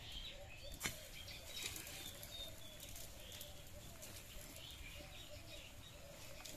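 Faint bird chirps and calls in the background, with a few light clicks, the sharpest about a second in.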